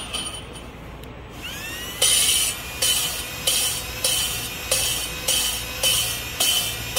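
A cordless drill spins a new valve against its seat with valve grinding compound, lapping it in. The drill motor whines up about a second and a half in and then runs steadily, while a grinding scrape comes in regular pulses about one and a half times a second.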